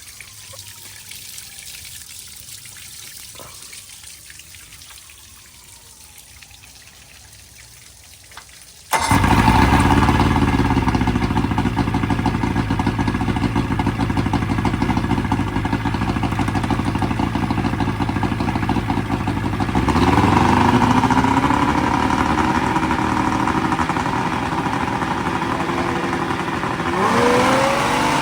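70 hp outboard boat motor running. It is fainter for about the first nine seconds, then suddenly much louder, and its pitch rises and falls a few times as the throttle is opened and eased back.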